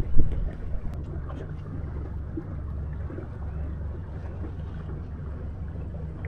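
Wind rumbling on the microphone over the small sounds of a fishing boat on the water, with scattered light clicks and one sharp knock just after the start.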